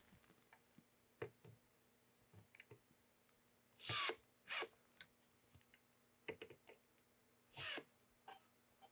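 A few short, quiet runs of a Festool cordless drill-driver driving screws into an aluminium frame: about four seconds in, again just after, and near the end. Between the runs there are light clicks and taps of handling.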